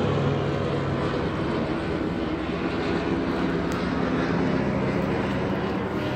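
A steady mechanical drone with a low hum, unchanging throughout.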